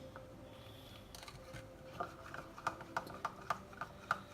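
Thick clear slime being stirred in a container, making short sticky clicks about three times a second from about halfway in. The slime is reaching its consistency and starting to come away from the sides.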